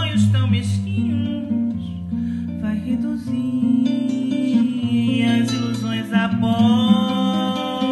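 Live acoustic samba-canção music: a seven-string acoustic guitar (violão de sete cordas) plays held low bass notes and chords, with a pitched melody line gliding above it.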